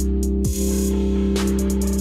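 Electronic background music with a steady drum beat and a held bass.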